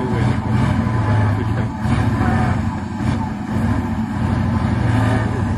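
Tatra truck's diesel engine working hard under heavy throttle in deep mud, its drone swelling and easing several times.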